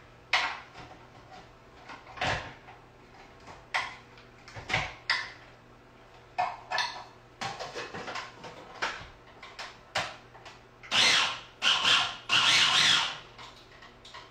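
Clicks and knocks of a small plastic food processor being set up, its bowl and lid handled, with a few louder noisy bursts near the end.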